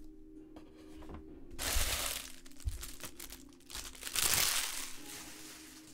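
Plastic wrapper of a Bowman Draft jumbo card pack crinkling, in two bursts: one about a second and a half in, a longer one about four seconds in.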